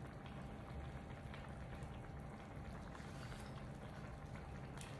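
Faint, steady bubbling of a meat-and-shrimp stuffing simmering in an electric skillet.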